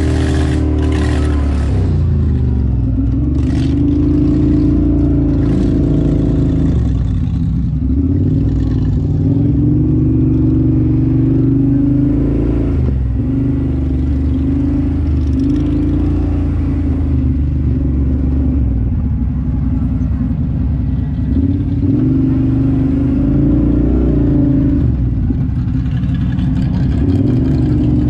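Off-road vehicle engine running under changing throttle, its pitch rising and falling again and again as it is ridden, with a few short knocks.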